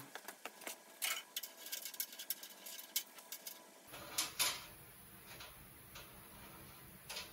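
Faint, irregular clicks and light taps from a steel tape measure being handled and stretched across a bare sheet-metal radiator support. A few sharper clicks come in the second half.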